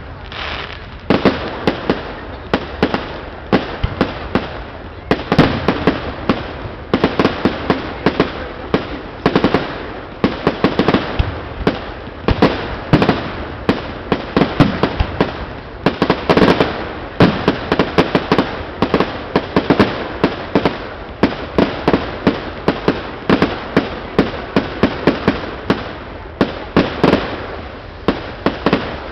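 Professional fireworks display: aerial shells bursting one after another in quick clusters of sharp bangs and crackles, each bang trailing off in an echo, with no let-up.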